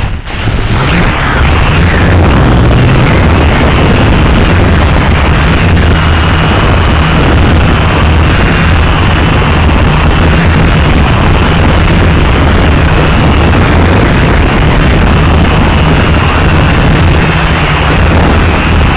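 SS360 stunt drone's motors and propellers spinning up at once and running at a steady, loud, buzzing whir, picked up right beside them by the camera mounted on the drone.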